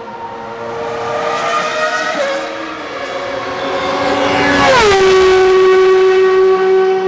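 Ferrari 333 SP sports prototype's V12 at high revs, passing close by at speed. The engine note climbs as it comes on, drops sharply as the car goes past about two-thirds of the way in, then holds steady and loud as it pulls away.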